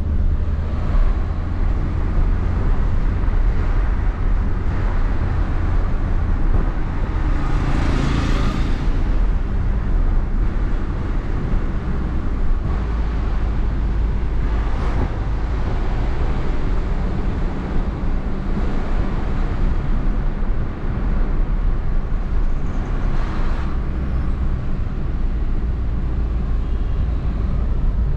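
Car driving along a road: steady low engine and tyre rumble. Three brief swells of louder rushing noise come about eight, fifteen and twenty-three seconds in.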